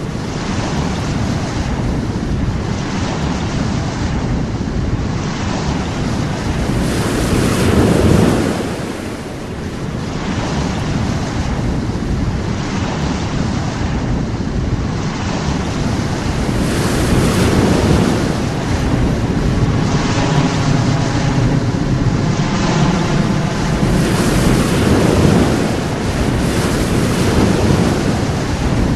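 Sea waves washing onto a shore, with wind buffeting the microphone; the surf swells and falls back roughly every eight to nine seconds.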